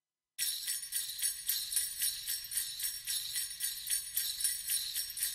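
Jingle bells shaken in a steady rhythm, about four shakes a second, starting about half a second in.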